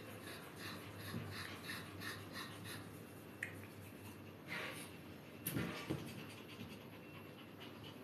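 Maltese dog panting quickly, about three breaths a second, then a click and a louder rustle and knock about halfway through.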